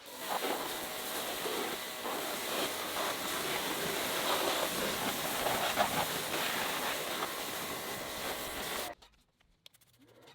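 A loud, steady hiss that starts abruptly and cuts off suddenly about nine seconds in.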